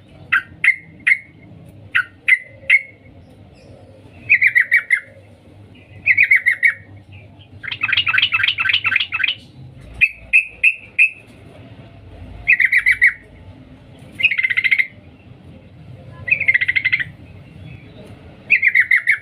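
Yellow-vented bulbul (trucukan) giving short bursts of quick 'cuk cuk' notes about every two seconds, with a longer chattering run about eight seconds in. The uploader presents it as a female calling a male.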